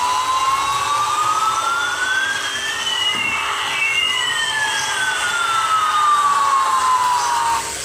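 Sound chip of a battery-powered Citilink A380 toy airliner playing an electronic jet-engine effect over a hiss. Two tones glide slowly through each other, one rising and one falling, and cross about halfway through; the effect ends near the end.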